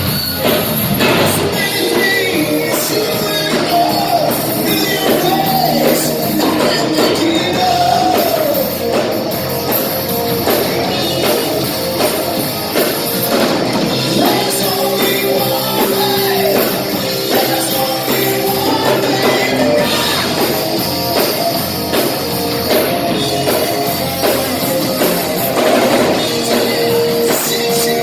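Rock music with singing over it, loud and steady throughout.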